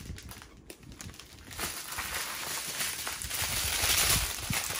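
Plastic bags of diamond-painting drills crinkling as a strip of them is handled, starting about a second and a half in and growing louder.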